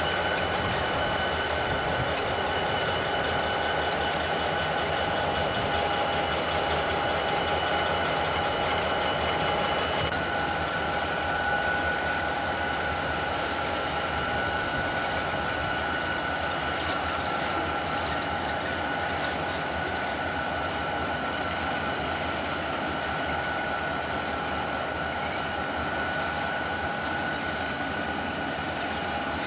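A string of Chessie System and B&O diesel-electric locomotives running with a freight train, a steady heavy rumble overlaid with sustained high-pitched squealing tones.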